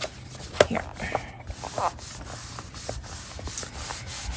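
Hands rubbing over and pressing down the paper pages of an open coloring book: a steady rustling hiss of skin on paper with small crackles, and one sharper click about half a second in.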